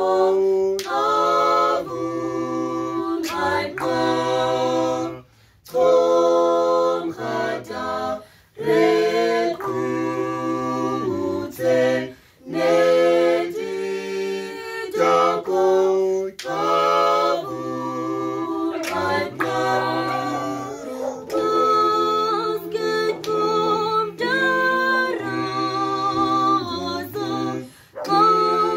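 Unaccompanied voices singing together in several-part harmony, a low bass line under higher parts, in phrases with brief breaks between them.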